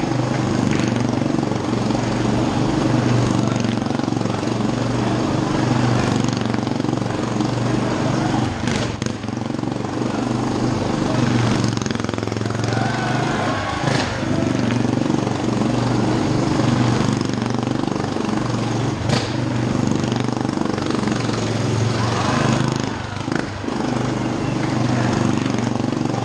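Motorcycle engine running steadily at a held speed as it circles the vertical wooden wall of a wall-of-death drum.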